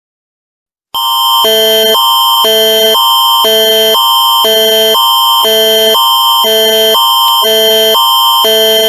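Canadian Alert Ready attention signal: a loud alarm tone alternating between two pitches about twice a second. It starts about a second in and lasts about eight seconds.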